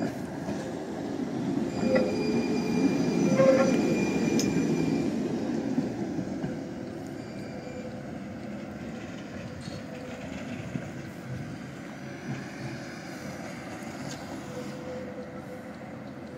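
Electric tram passing close and running off along a curved track: rumble of steel wheels on rail with a thin squeal over it. It is loudest about two to five seconds in, then fades to a quieter rumble as the tram moves away.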